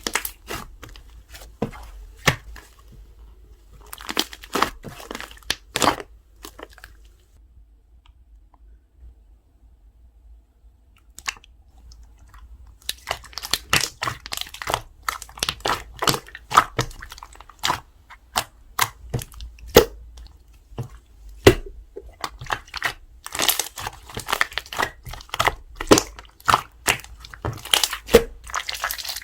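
Hand-played slime being squeezed, stretched and poked, giving dense crackling and popping clicks. A short quiet pause comes about a third of the way in, then the crackling thickens and runs on steadily.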